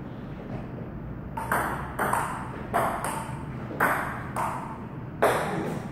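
Table tennis rally: a celluloid ball clicking off the paddles and bouncing on the table, with sharp ticks often in quick pairs, roughly one or two a second from about a second and a half in.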